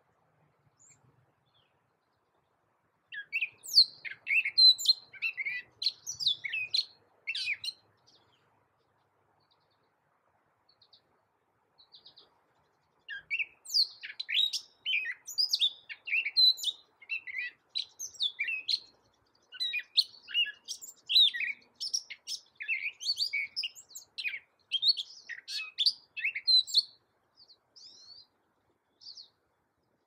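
Gray catbird singing: a rapid, jumbled run of short, varied slurred notes. The song comes in two bouts, a short one starting about three seconds in, then, after a pause of about five seconds, a longer one lasting some fourteen seconds, with a few stray notes near the end.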